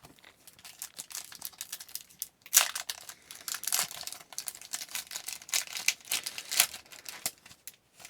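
Hockey card pack wrapper being crinkled and torn open by hand: a rapid run of crackles and rips, loudest a little over two and a half seconds in.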